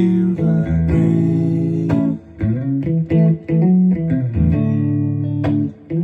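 Guitar playing an instrumental passage of a song, with plucked notes and chords over a low bass line and no singing.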